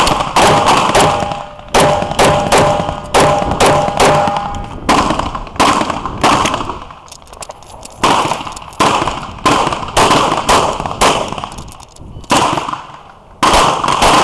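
Glock 34 9mm pistol firing quick strings of shots, two to three a second, with short pauses between strings. A steady ringing tone hangs under the first few seconds of shooting.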